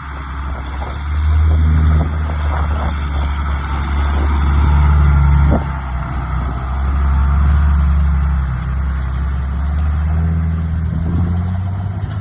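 John Deere 8200 tractor's diesel engine running with a deep drone that swells louder and eases off several times, dropping suddenly about five and a half seconds in.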